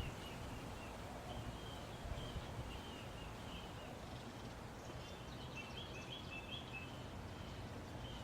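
Faint bird chirping in strings of short high notes, in two runs: one over the first few seconds and another from about five seconds in. Under it is a low, steady background rumble.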